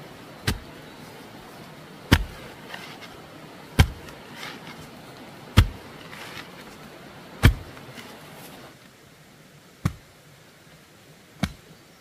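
A hand tool striking hard seven times at a slow, even pace, about one blow every two seconds, with faint scraping between blows; the last two blows are softer.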